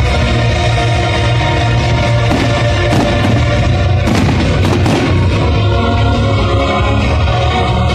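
Loud music with a heavy, steady beat, overlaid by a cluster of firework bursts banging between about three and five seconds in.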